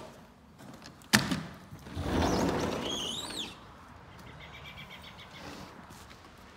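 A sliding glass door gives a sharp knock about a second in, then rumbles and scrapes for about a second and a half. A bird chirps twice near the end of that noise, and faint bird calls follow.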